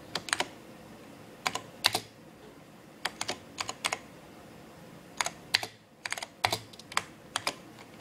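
Keys of an IBM PC Convertible keyboard being typed in short, uneven bursts of clicks with brief pauses, as a search query is entered letter by letter.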